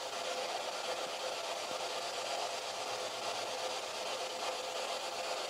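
Steady background hiss with a faint steady hum and no distinct events: quiet attic room tone under the recording's own noise.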